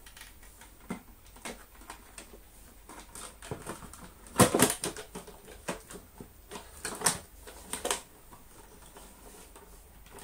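Clicks and knocks of parts being handled as the cord rewind reel of an Electrolux Slimline 185 vacuum cleaner is refitted and tried by hand. There is a louder clatter a little before halfway and a few more sharp knocks later.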